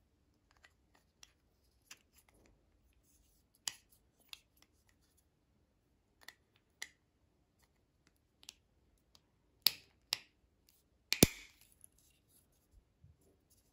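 Hard plastic parts of a GraviTrax marble run clicking as green spiral track pieces are handled and pressed onto a white hexagonal base tile. Scattered light clicks, then three loud snaps close together about two-thirds of the way through as a piece is fitted into the tile.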